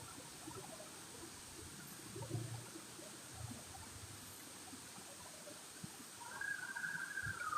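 Faint outdoor background with scattered light knocks. Near the end a siren's wail starts and slowly falls in pitch.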